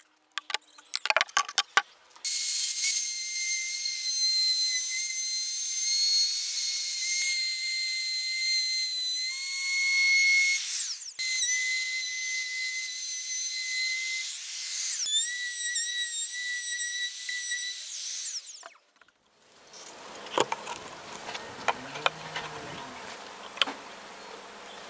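Trim router running at high speed with a high-pitched whine, routing into a hardwood board; the whine breaks off sharply about 11 and 15 seconds in and stops near 19 seconds. After that come quieter clicks and knocks of speaker drivers being handled on the wood.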